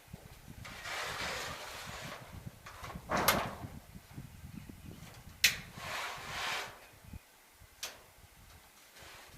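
Roofing work: scraping and rustling as roof shingles are handled and slid into place, with three sharp knocks spaced about two seconds apart.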